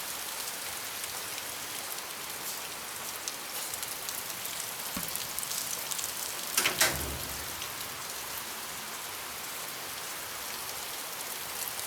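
Heavy rain falling steadily. A single brief louder knock sounds a little past halfway.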